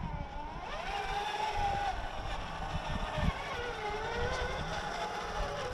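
Radio-controlled scale crawler truck's motor and gears whining as it drives up, the pitch rising and falling with the throttle.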